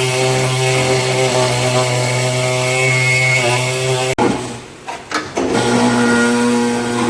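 Electric power tool motor running steadily with a dip in pitch near three and a half seconds. It stops with a click about four seconds in, a few knocks follow, and it starts up again about a second and a half later.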